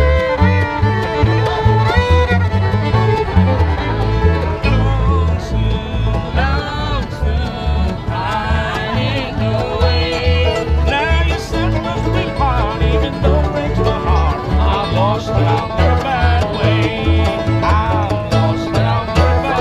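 Acoustic bluegrass band of fiddle, banjo, acoustic guitar and mandolin playing a tune together, with a steady beat in the low notes and the fiddle melody on top.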